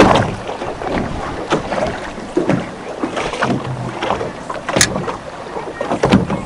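Water slapping and splashing against the hull of a small boat on open sea, with wind on the microphone. Two sharp knocks stand out, about five and six seconds in.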